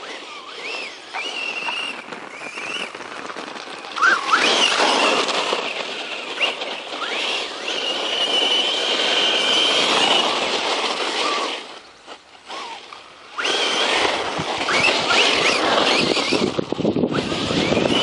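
Brushless electric motor of a 1/10-scale RC truck whining up and down in pitch as it speeds up and slows, over steady tyre and ground noise. It drops away briefly about two-thirds of the way through, then picks up again.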